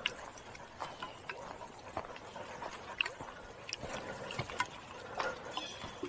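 Footsteps on a rocky, leaf-strewn dirt trail: irregular light crunches and clicks of a hiker walking.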